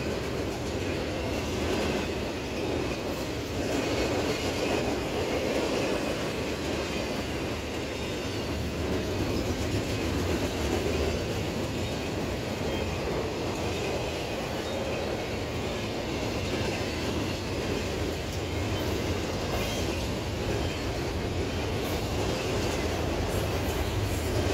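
Double-stack intermodal container cars of a BNSF freight train rolling past, a steady rumble of steel wheels on rail.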